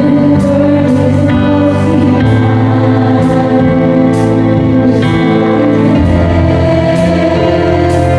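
Slow gospel worship music played on an electronic keyboard: sustained chords over bass notes that change every second or two.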